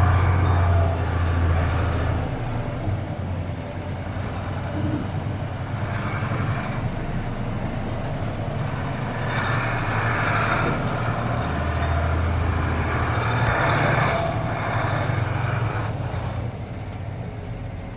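Mercedes-Benz Unimog U2450 6x6 truck's diesel engine pulling under load off-road, its note swelling with the throttle near the start and again from about ten to fourteen seconds in, then easing off near the end.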